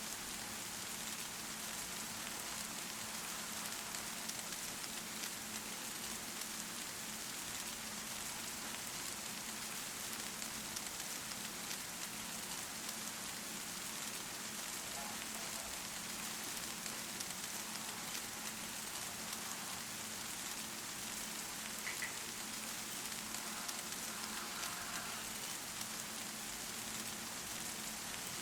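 Steady rain falling and pattering on a surface, an even hiss with no let-up.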